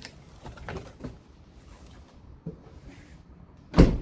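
Rummaging through bags and packaging in a hatchback's cargo area while pulling out new car floor mats: soft rustling and small knocks, with one sharp thump near the end.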